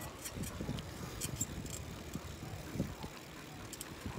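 Riding a bicycle along a paved trail: a low, uneven rumble of wind on the microphone and tyres on the path, with a few faint ticks.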